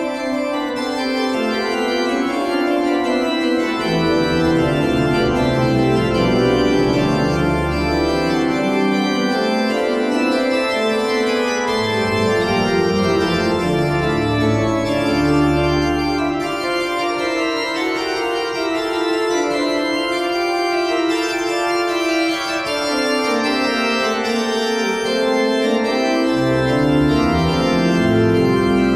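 Church pipe organ playing sustained chords, with low pedal bass notes coming in and dropping out several times.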